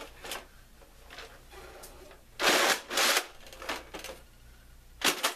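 Handling noise from a large plastic Nerf blaster with a bipod fitted, being swung around: a light rustle with two loud scraping bursts about midway and a shorter one near the end.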